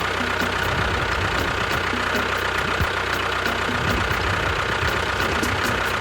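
Engine idling steadily with a low, even rumble.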